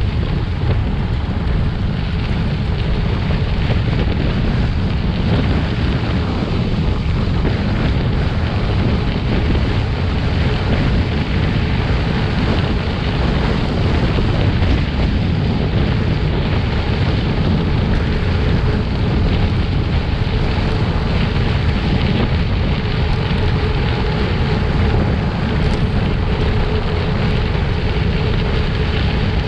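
Steady wind noise on the microphone of a gravel bike riding at speed, with the rush of tyres rolling on a gravel road.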